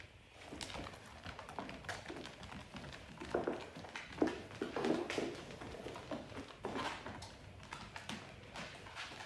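A dog's claws tapping on a laminate floor as it walks about, a run of irregular clicks and light taps, loudest about four seconds in.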